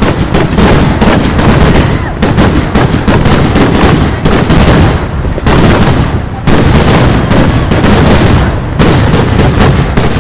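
Vedikettu fireworks barrage: a dense, unbroken run of rapid, very loud firecracker bangs, with short dips about halfway through and again near the end.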